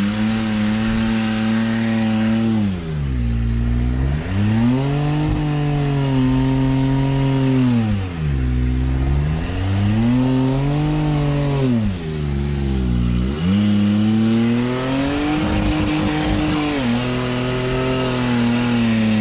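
1992 Nissan Pathfinder's engine driven hard, revving up and falling back repeatedly: the engine note drops sharply and climbs again three times, about every five seconds, and runs rough for a moment near the end.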